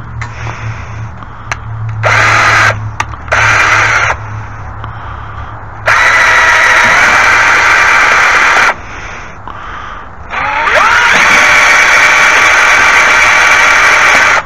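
Electric drill running in four bursts, the two later ones longer, the motor's pitch rising as it spins up: drilling out the rivets of a metal shelf.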